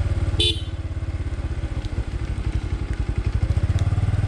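Motorcycle engine running under way, with a steady rapid low pulse. It eases a little after a brief high chirp about half a second in, then picks up again near the end.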